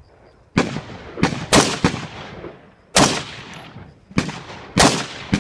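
Rifle shots fired in an irregular string, about seven reports, each followed by a short echoing tail.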